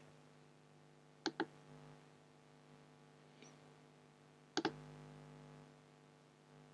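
Computer mouse clicking: two quick double clicks, one about a second in and another about four and a half seconds in, over a faint steady electrical hum.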